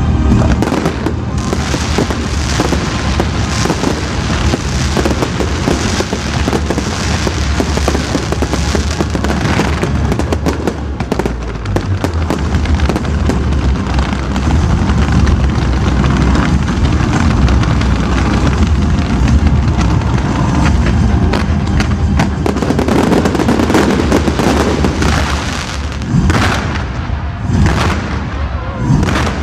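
Fireworks display: a dense barrage of overlapping aerial shell bursts, bangs and crackle with a heavy low rumble, thinning to a few separate bursts near the end. Music plays underneath.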